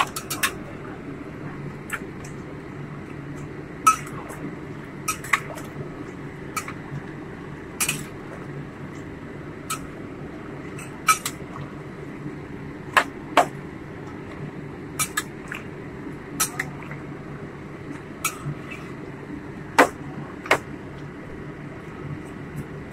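Spatula clinking and scraping against a wok while stirring chicken in sauce: irregular sharp knocks, a dozen or so, over a steady low hum.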